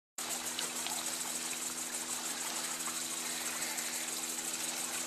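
A steady motor hum over the constant hiss of flowing stream water.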